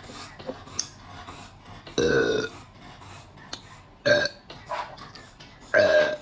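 A person burping three times: a longer burp about two seconds in, a short one about four seconds in, and another near the end.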